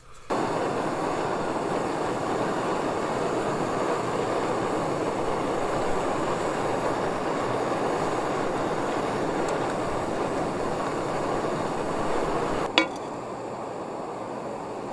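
Small camp stove burner running with a steady rushing hiss. Near the end there is a sharp click, and the level drops to a quieter hiss.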